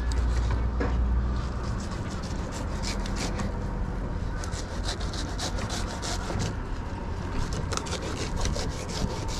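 Fillet knife scraping and slicing through black drum fillets against a fish-cleaning table in a quick run of short, rasping strokes. A low rumble underneath is heaviest in the first couple of seconds.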